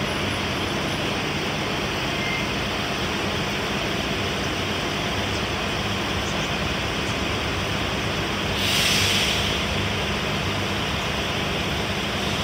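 City buses running with a steady low engine hum over a constant wash of rain and wet-road noise, with a brief loud hiss about nine seconds in.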